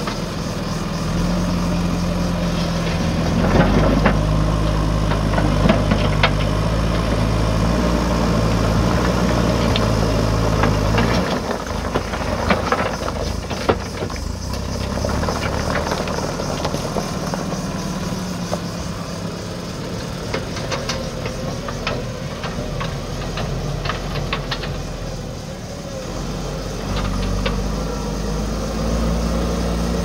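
JCB 3DX backhoe loader's diesel engine running hard as the front loader bucket works, dropping back about a third of the way in and picking up again near the end. Stones clatter against the steel bucket and each other several times, most around the middle as the load is tipped onto the pile.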